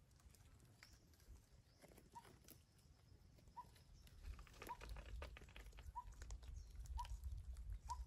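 Faint, short chirps from red-breasted parakeets, repeating about once a second from around two seconds in, over light clicks and rustling.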